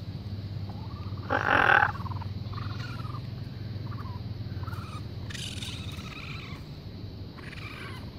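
Baby raccoons calling: a string of short chirping cries, with one loud harsh cry about a second and a half in and a longer one past the middle, over a low steady hum.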